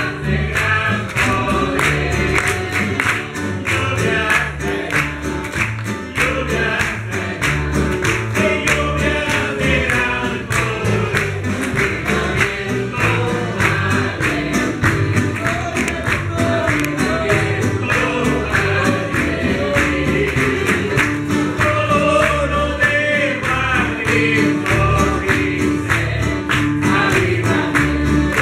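A Spanish-language gospel hymn sung by a man and a woman into microphones, backed by a church band whose drums keep a steady beat over a bass line.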